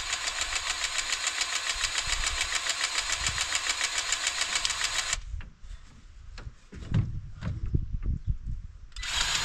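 Battery-powered grease gun running in a rapid pulsing whir, pumping grease into the corn head's fittings; it stops about five seconds in, a few knocks and clunks follow, and it starts again near the end.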